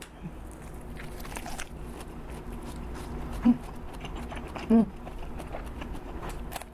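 Close-up chewing and crunching of a lettuce wrap filled with pork belly and mushrooms, with two short hums in the middle. Near the end comes a crisp bite into a raw green chili pepper.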